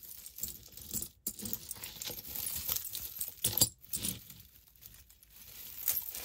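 Pieces of costume jewelry clinking and rattling as they are handled and sorted: small metal chains, charms and beads jingling, with a number of sharper clicks.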